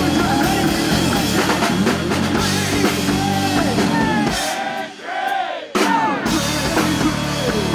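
Live rock band playing electric guitar, bass guitar and drum kit. About four seconds in the bass and drums drop out, leaving higher notes that glide up and down, and the full band comes back in with a loud crash about a second and a half later.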